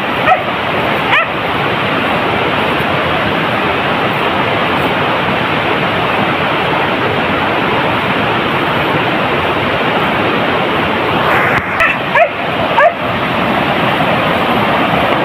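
Beagle yelping in short high calls, once just after the start and several times in quick succession about eleven to thirteen seconds in, over a loud steady rushing noise.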